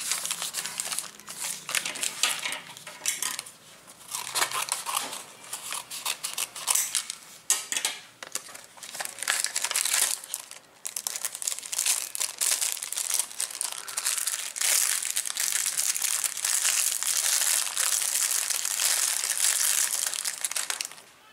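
Paper mailer envelope being handled and opened by hand, with dense crinkling and rustling; later, steadier crinkling of a clear plastic bag.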